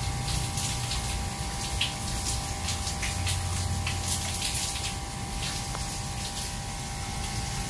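Water spraying from a handheld shower hose onto a wet Maine Coon's fur, rinsing out shampoo, with frequent small splashes and a steady hum underneath.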